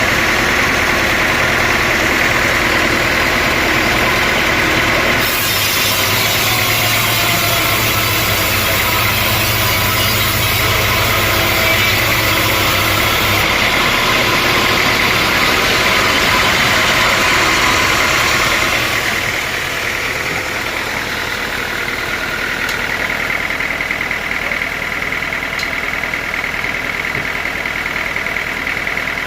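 Sawmill machinery running steadily with a constant high whine. A hiss comes in a few seconds in, and the sound drops a little in level about two-thirds of the way through.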